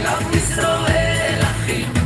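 Hebrew pop song playing with a steady beat and a singing voice.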